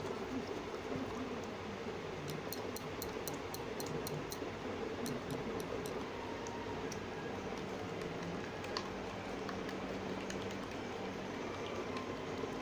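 Egg, oil and sugar mixture being beaten by hand with a spoon in a bowl: light clicks of the spoon against the bowl, a quick run of about five a second between two and six seconds in, then a few scattered ones. The beating goes on until the sugar dissolves, for a soft, spongy cake batter.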